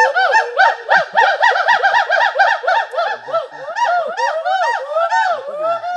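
Gibbon calling: a fast, loud run of rising-and-falling whoops, about four or five notes a second, with a few notes in the second half spaced a little wider.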